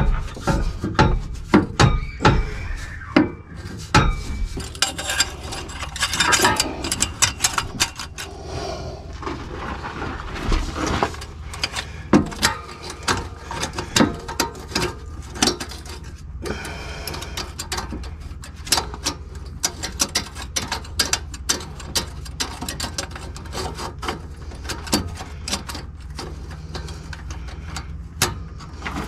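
Irregular clicks, taps and clanks of hand tools working on metal parts, a steady stream of small knocks over a low hum.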